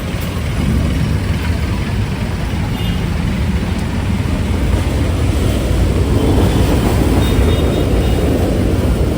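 Road traffic: a steady low vehicle engine rumble that grows somewhat louder in the second half.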